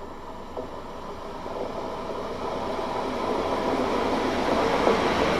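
ÖBB Cityjet (Siemens Desiro ML) electric multiple unit approaching along the track, its running noise growing steadily louder as it nears.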